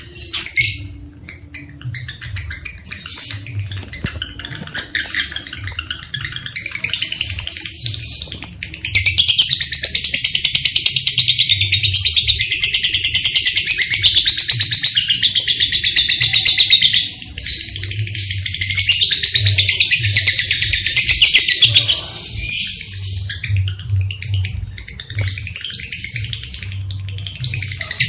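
Lovebirds chattering in rapid, high-pitched trills, softer at first, then a long unbroken stretch of loud chatter from about a third of the way in, followed by further bursts.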